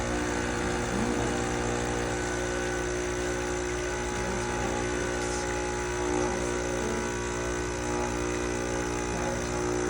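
Espresso machine's pump running steadily through a shot, an even mechanical hum that cuts off abruptly at the end as the shot is stopped.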